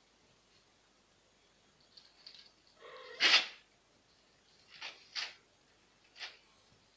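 Kittens pawing and digging in cat litter in plastic litter boxes: a few short scratchy rustles, the loudest about three seconds in.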